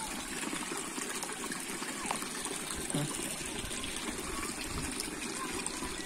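Rocky mountain stream flowing steadily among boulders.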